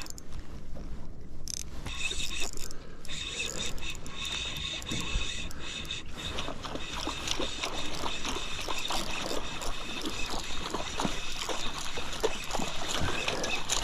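Spinning reel being cranked to play in a hooked fish: a steady whirring of the reel's gears with a patter of small clicks.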